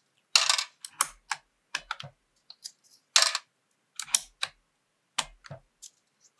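Keycap puller clicking onto keycaps and keycaps popping off the switches of a Wooting 2 mechanical keyboard: an irregular string of sharp plastic clicks and clacks.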